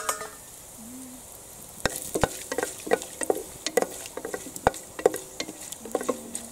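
Whole spices (cinnamon, bay leaves, cloves, star anise) sizzling in hot ghee and oil in a pressure cooker. A metal spatula stirs them, scraping and knocking against the pot in quick irregular strokes from about two seconds in, after a single clink at the start.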